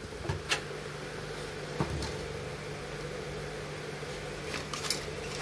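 A steady low hum, with a few light clicks and knocks as the plastic chassis and circuit boards of a disassembled stereo system are handled.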